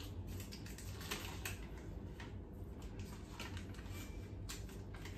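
Paper wrapper being peeled off a stick of butter: soft crinkling and scattered light ticks over a steady low hum.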